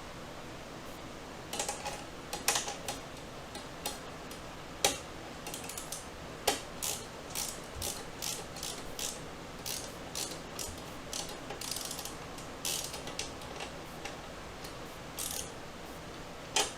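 Hand ratchet clicking in short, irregular runs as bolts are tightened. The clicking starts about a second and a half in, and one louder click comes near the end.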